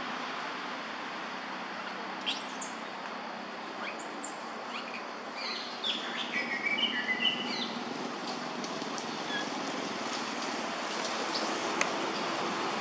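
Wild birds calling over a steady background hiss: a few high, quick falling chirps spaced seconds apart, and a run of short stepped whistled notes about five to seven seconds in.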